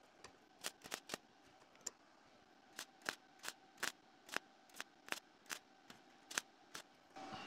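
MIG welder running .023 wire at a fixed 19 volts, making a rapid series of tack welds on 22-gauge sheet steel: about sixteen brief, sharp arc pops, two to three a second, with short silences between. The voltage is too high for metal this thin, so the tacks blow through the sheet.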